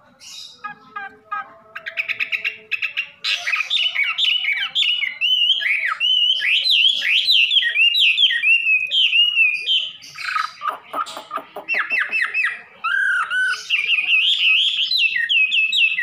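Chinese hwamei (wambi) singing a loud, fast song of varied whistled phrases. It opens with quick repeated notes and breaks off briefly about ten seconds in before running on.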